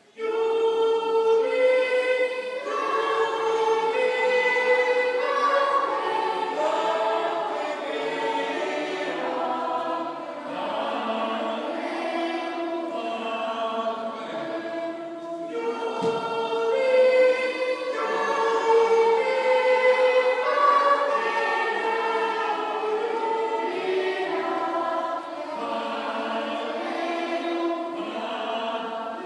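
Children's choir singing a melody in high voices, starting abruptly. The same phrase begins again about halfway through.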